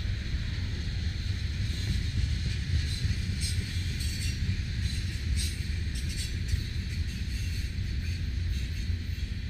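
Freight train of railroad tank cars rolling steadily past: a continuous low rumble of steel wheels on rail, with a scattering of short clicks and squeaks in the middle.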